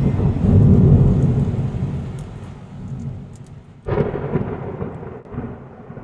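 Thunderstorm sound effect: a loud rolling thunder rumble that fades over the first couple of seconds, then a sudden second clap about four seconds in that dies away, with a steady hiss of rain beneath.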